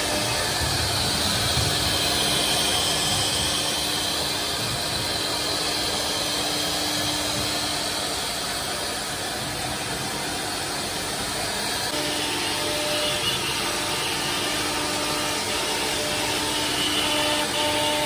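Chencan M1325AG CNC router with its spindle running and its bit routing grooves in a wooden sheet: a steady rushing noise with a faint hum held throughout.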